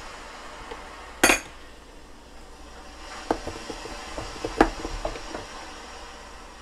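Plastic clicks and knocks from a small electric food chopper being opened: a sharp snap about a second in, then a run of lighter clicks and taps as the bowl is twisted and lifted off its motor base. The motor is not running.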